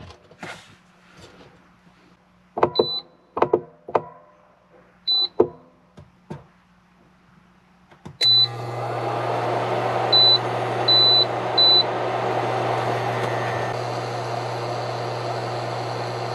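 Knocks and clicks of a pot and its detachable handles on a portable induction cooktop, with two short high beeps. About eight seconds in, the cooktop switches on with a beep and its cooling fan starts, running with a steady hum, while three more short beeps come from the control panel as it is set.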